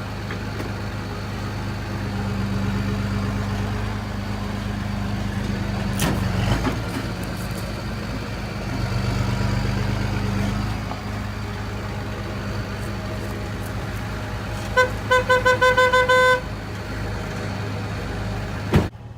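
Vehicle engine running steadily, swelling in level twice. Near the end a horn is honked in a quick string of about seven short beeps.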